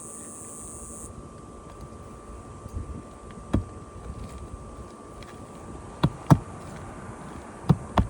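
Roofing hammer hatchet driving nails through asphalt shingles: five sharp strikes, unevenly spaced, one a little before midway, a quick pair later on and two more near the end. A steady high hiss cuts off about a second in.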